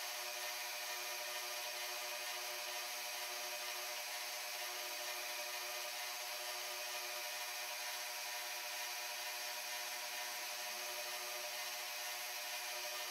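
Milling machine end mill cutting metal as it mills down the bosses on a small door part: a steady cutting hiss with the steady tones of the running spindle under it.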